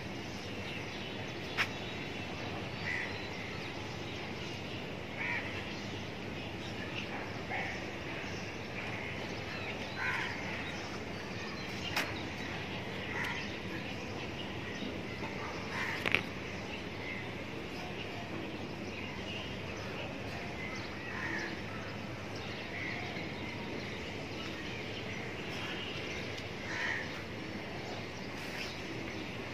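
Steady outdoor town background noise with short bird calls scattered through it every second or two, and a few sharp clicks.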